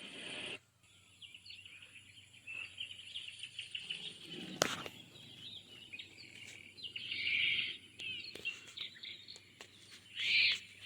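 Recorded birdsong and insect chirping played through the galaxy projector's built-in speaker on a nature white-noise setting. A steady hiss cuts off about half a second in, and a single sharp click comes near the middle.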